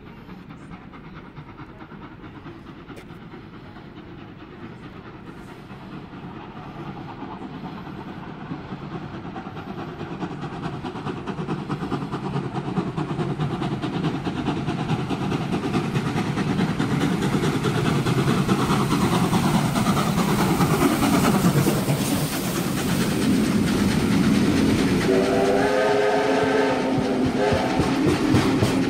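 Heritage train, with steam locomotive 3016 and Alco diesel 4490, approaching and passing close by. It grows steadily louder to a constant rumble of wheels on rail. Near the end, as the locomotive draws level, the locomotive gives a brief multi-note warning blast.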